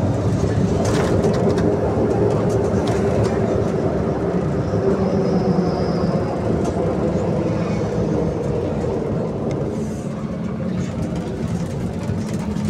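Ride noise inside a moving BKM 321 trolleybus: a steady rumble and hum from the running gear and electric drive, with scattered rattles and knocks from the body.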